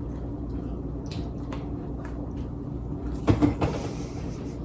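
Refrigerator compressor running with a steady low hum, which the eaters call annoyingly loud. Over it come a few light clicks, and about three seconds in a short louder clatter and rustle.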